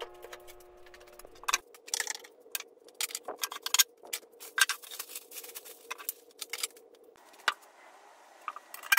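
Music fading out in the first second or so, then a string of irregular sharp clicks and taps over a faint steady tone.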